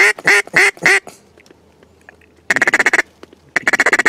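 Hand-blown duck call: a string of loud quacks in the first second, then after a pause two short runs of fast chatter, the feed chuckle.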